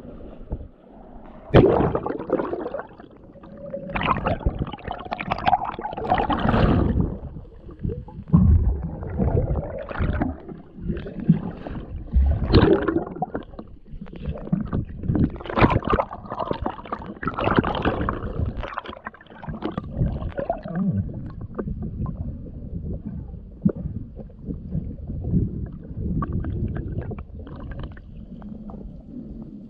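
Muffled underwater gurgling and rushing water around a diver in a river current, rising and falling irregularly, with a few short knocks.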